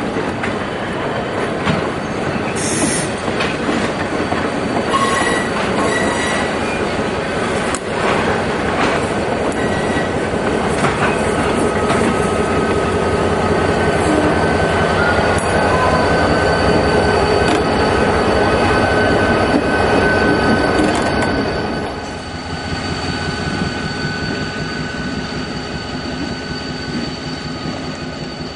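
Passenger coaches and a trailing diesel locomotive rolling past at close range, wheels clattering on the rails with a thin, steady wheel squeal over the rumble. The sound is loudest as the trailing locomotive passes, then drops abruptly about three-quarters of the way through as the train pulls away.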